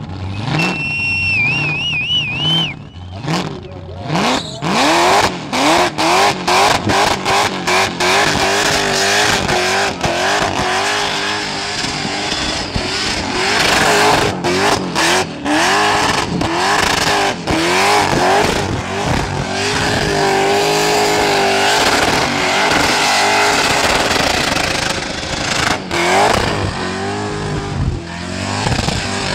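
Supercharged Holden VL Commodore doing a burnout, with a wavering high squeal in the first few seconds. From about four seconds in, the engine is revved in a string of quick on-off blips, then held at high revs with its pitch rising and wavering while the rear tyres spin.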